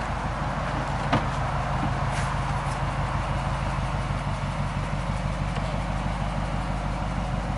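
Subaru EJ25 turbocharged flat-four engine idling steadily, with a single sharp click about a second in.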